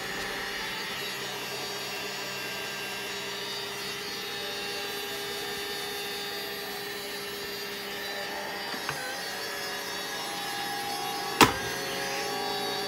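Automat robot vacuum cleaner running just after being switched on: a steady motor whine with its spinning side brushes, its pitch dipping briefly about nine seconds in. A single sharp knock comes near the end.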